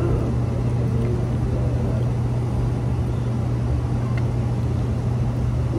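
A steady low droning hum, like a motor or engine running, with a couple of faint ticks.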